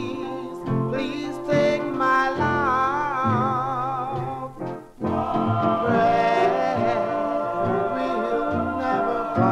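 Early-1950s R&B vocal group singing with vibrato over a band accompaniment, played from a 78 rpm record. The voices break off briefly about halfway through, then come back on held notes.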